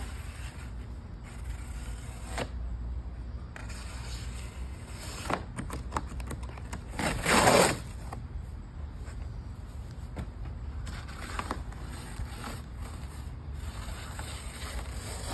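Cardboard storm-door shipping box being torn open along its side and the lid pulled back: scattered scraping and rustling of cardboard, with one loud tearing rip about seven seconds in.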